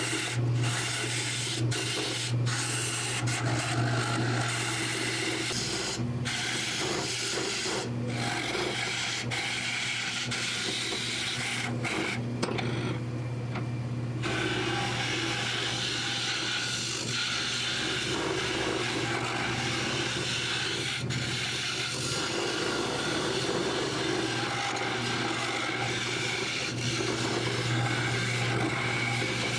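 Jet wood lathe humming steadily while a hand-held turning tool scrapes and cuts the inside of a spinning wooden vase blank as it is hollowed: a dry, rasping scrape. Sharp ticks come through the first dozen seconds, and the scraping breaks off briefly about thirteen seconds in.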